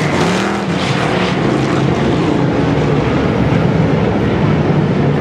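Several hobby stock race cars' engines running hard as the pack races around a dirt oval, their pitch rising and falling in the first second, then holding a steadier drone.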